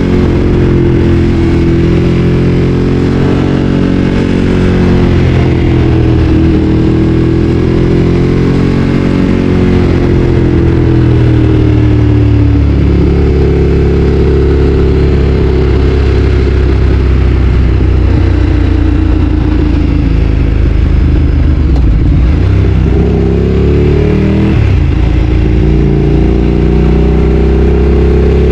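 Ducati Streetfighter 848's L-twin engine running under way, loud throughout. Its pitch rises and falls repeatedly as the throttle opens and closes, with a marked drop about halfway through and another near the end.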